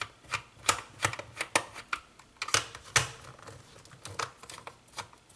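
Many irregular light clicks and knocks of hard plastic and tools being handled and set down on a work surface, as the hand mixer and a screwdriver are moved about.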